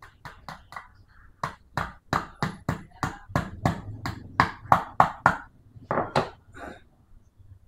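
Quick series of sharp metal taps, about three or four a second with a short pause before the last few: a socket used as a drift is being hammered to drive a new seal into the Yamaha Jupiter MX King's water pump housing.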